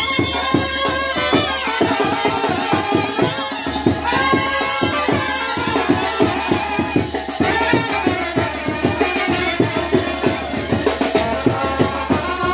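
Wedding band playing a Pahari folk dance tune: clarinet and trumpets carry the melody over a quick, steady drum beat.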